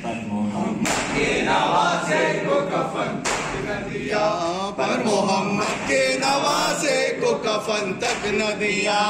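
A male reciter sings an Urdu noha (a mourning lament) over a microphone while a group of men chant along. Now and then there are sharp slaps of hands striking chests (matam).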